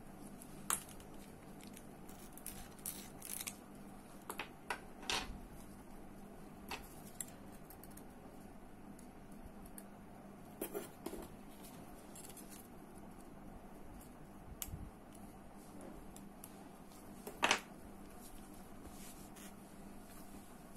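Scattered small clicks and taps of spinning-reel spool and drag-stack parts being handled and fitted during reassembly. A steady faint hum runs underneath.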